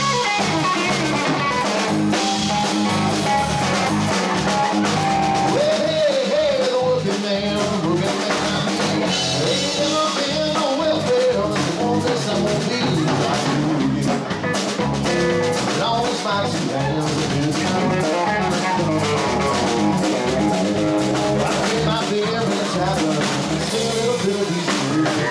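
Live rock-blues trio playing: electric guitar, bass guitar and drum kit with a steady beat, and the guitarist singing lead vocals.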